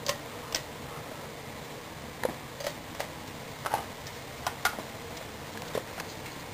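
Irregular light clicks and clinks, about ten of them, as a hand handles the ceiling fan light kit's glass shades and brass pull-chain, over a steady background hiss.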